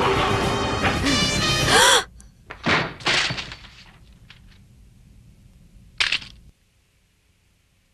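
Tense dramatic soundtrack music that cuts off suddenly about two seconds in. Two sharp knocks follow, then a couple of faint ticks, and a louder sharp clack about six seconds in, after which the track drops to near silence.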